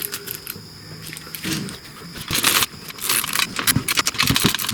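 Metal tools and parts clinking and rattling as a motorcycle shift pedal assembly is taken off, with scattered sharp clicks and two longer bursts of jangling, about two and three seconds in.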